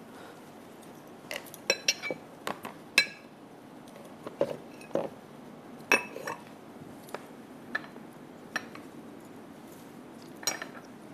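Spoon scraping and knocking against a saucepan and a plastic bowl as thick pizza sauce is spooned from one to the other: irregular clinks and taps, several close together in the first few seconds, then single ones every second or so.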